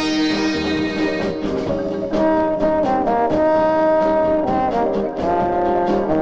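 Instrumental 1960s pop arrangement in which a brass section carries the tune in long held notes over a steady beat, with no sitar in this passage.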